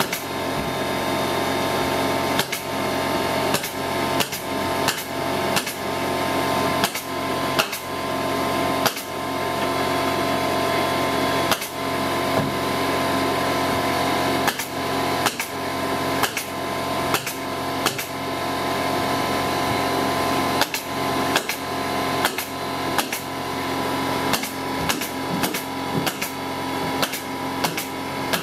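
Staple gun firing staples into the thin plywood wall skin, one sharp shot after another at uneven intervals, sometimes two in quick succession, over a steady mechanical hum.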